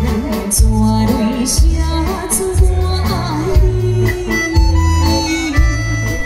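Live band music with a steady drum and bass beat and cymbal hits, under a held, wavering melody line.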